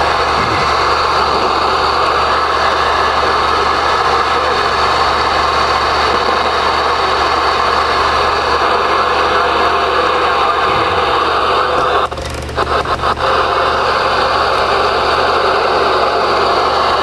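Cobra 29LTD Classic CB radio hissing steady static from its speaker on receive. About twelve seconds in, the hiss drops out in a few quick breaks with clicks while the channel is switched from 19 to 34.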